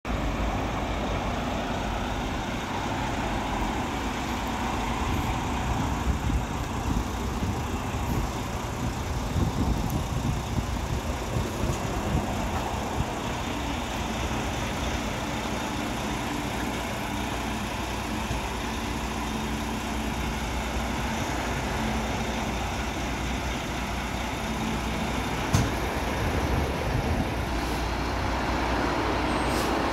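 Front-loader garbage truck's diesel engine running at low speed as it creeps up to a dumpster and lowers its lift arms, with one sharp knock near the end.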